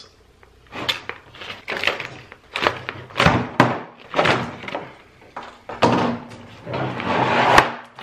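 Plastic ratchet-strap storage case being unpacked: zip ties cut with cutters, the paper insert rustling and the plastic case knocked about as the straps are pulled free. It comes as a string of short rustling and scraping bursts with a few sharp clicks, the loudest near the end.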